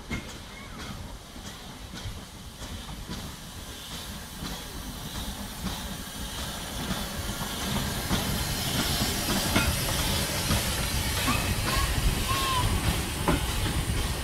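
Narrow-gauge train approaching, its rumble and hiss growing steadily louder, with a few brief high squeaks near the end.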